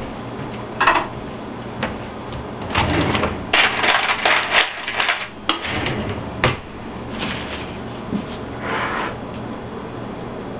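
Kitchen drawer and cutlery clattering as a fork is fetched: irregular rattles, densest about three to five seconds in, then a sharp click.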